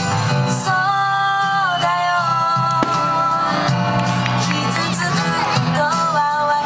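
Music with a singing voice carrying a melody over a steady accompaniment.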